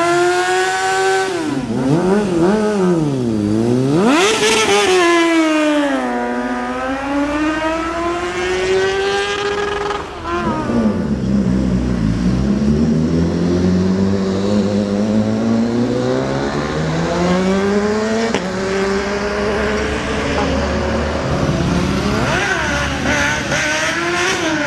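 Inline-four sport-bike engines revving hard across several clips. A Honda CB 600F Hornet is blipped up and down in quick revs during a burnout. After a cut about ten seconds in, other bikes, among them a BMW S1000RR, accelerate with the pitch climbing steadily.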